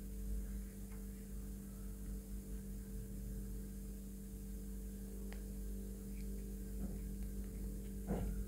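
Steady low electrical hum, with a couple of faint clicks.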